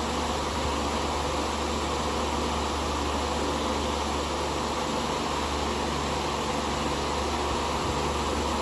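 Lasko 16-inch Performance table fan, model 2506, running steadily: an even rush of moving air with a low motor hum underneath.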